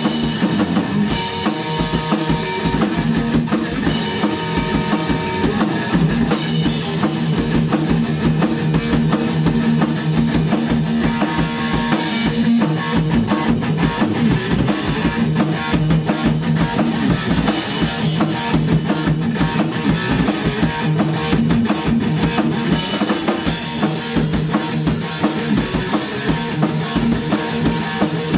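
A rock band playing: drum kit with a fast, steady beat and bass drum, under guitar.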